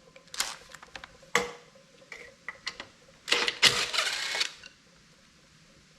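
Metal tools and engine parts being handled on a workbench: a series of sharp clicks and knocks, then a louder clattering rattle for about a second near the middle, then quiet handling.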